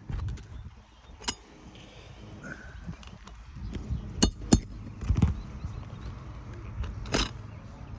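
Scattered sharp knocks and clinks, about five, with two loud ones in quick succession about four seconds in, from hand tools working roof shingles during a shingle repair attempt, over a low rumble.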